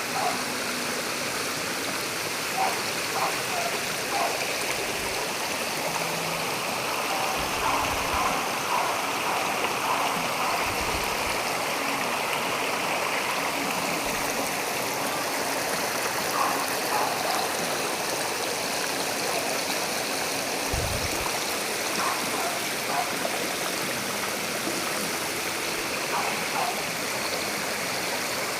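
Steady rush of flowing water from a stream or small waterfall, with small gurgles and a few brief low bumps.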